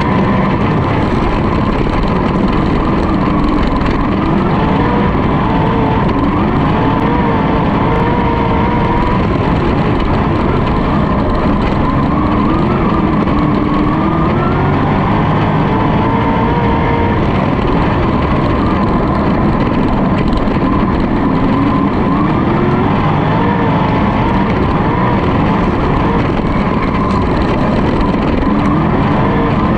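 Sprintcar's V8 engine heard onboard at racing speed, loud and constant. Its note rises and falls every few seconds as the throttle is worked through the turns, over a steady rush of noise.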